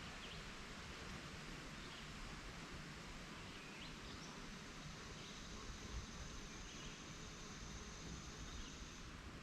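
Quiet outdoor ambience: a steady hiss with faint, scattered bird chirps. A thin, high, steady tone comes in about four seconds in and stops just before the end.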